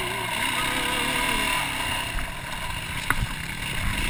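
Off-road motorcycle engine running, its revs wavering up and down, with a sharp knock about three seconds in.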